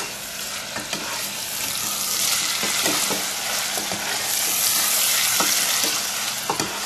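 Diced vegetables with freshly added tomato, drumstick and curry leaves sizzling in a stainless steel pot as a steel ladle stirs them, with a few sharp clinks of the ladle against the pot. The sizzling grows louder about two seconds in.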